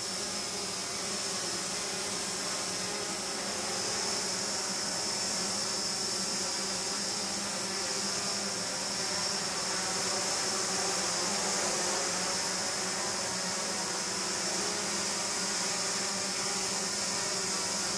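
Four small quadcopter drones flying together, their spinning propellers making a steady, high-pitched buzz.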